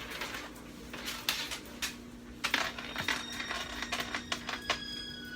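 A cloth wiping down a kitchen countertop in short swishing strokes, with a steady low hum behind. Near the end a few steady high tones come in.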